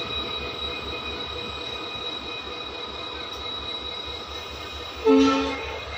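Passenger train running, heard from an open coach door: steady rumble of wheels on rail with a quick low pulsing and a faint high whine. A train horn gives one short blast about five seconds in.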